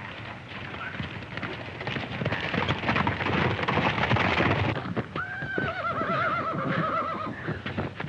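Horses galloping, a dense clatter of hoofbeats that grows louder. About five seconds in, a horse neighs: a long, shaking whinny that slowly falls in pitch.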